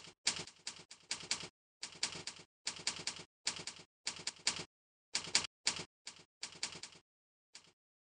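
Typing sound effect: keys clicking in quick runs with short pauses between them, sparser near the end.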